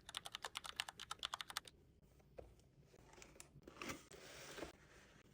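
Fast typing on a computer keyboard: a quick run of crisp keystroke clicks, several a second, that stops about a second and a half in. A brief soft rustling noise follows a little past the middle.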